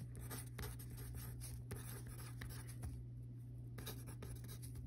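Pen scratching on paper as words are handwritten, in many short strokes with a brief pause about three seconds in, over a steady low hum.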